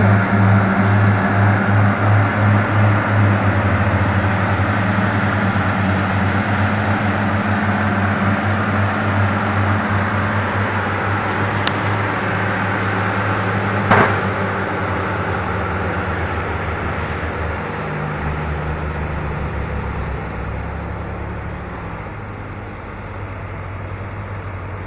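Heavy diesel engines of Caterpillar wheel loaders running under load while they tow a loaded log truck: a steady, deep engine drone that slowly fades toward the end. A single sharp knock sounds a little past halfway.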